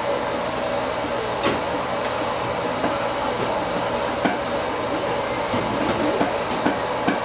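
Steady hum and hiss of a small eatery's background noise, such as a running fan or ventilation, broken by a few short, sharp clicks of tableware.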